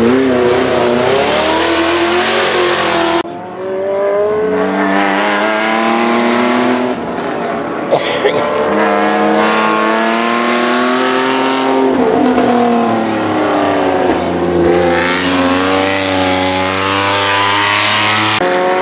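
Race car engines on a gravel hill climb, accelerating hard and revving up and dropping back again and again through gear changes, from several cars in turn, one of them a winged open-wheel buggy. A sharp pop about eight seconds in.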